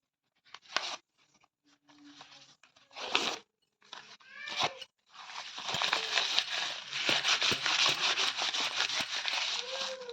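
Paper being torn: a few short rips, then from about halfway a longer run of continuous tearing and crackling.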